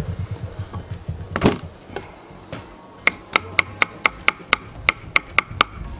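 Chef's knife chopping garlic cloves on a wooden cutting board: a single knock about a second and a half in, then from about halfway a steady run of quick knocks, about four a second.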